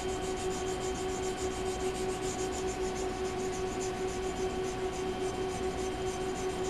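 Mora knife blade being lapped back and forth on a red oak board charged with abrasive compound and oil: a gritty rubbing at about four strokes a second, over a steady hum.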